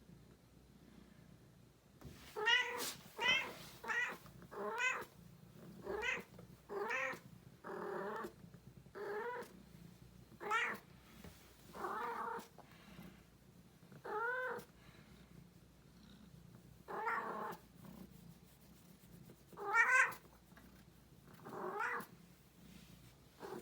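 Female cat in heat calling: a series of about fourteen short meows, each rising and falling in pitch, coming in quick succession at first and then a second or two apart.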